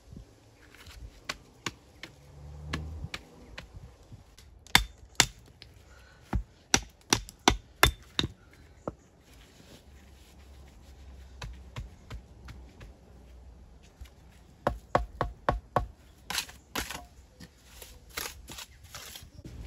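Walling stone struck with hard, sharp knocks: a few light taps, then two runs of quick strikes about three a second, one starting about five seconds in and another from about fifteen seconds in.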